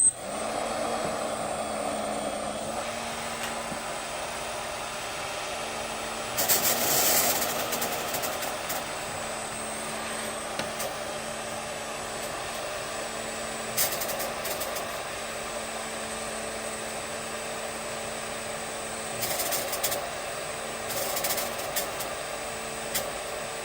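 Ducted fan on a 3D printed hovercraft, driven by a 2300 KV brushless motor on 3S, running steadily at low throttle with an even whine and airy rush. Several brief louder rushes of air noise rise over it along the way.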